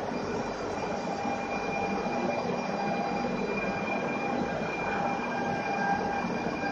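A Stadler FLIRT ED160 electric multiple unit pulling out of the station and moving past close by: even rolling and running noise of the train, with a few steady high-pitched tones over it.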